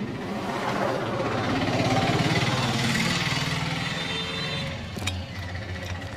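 Street traffic: a motor vehicle passing, its engine and road noise swelling for about two seconds and then fading.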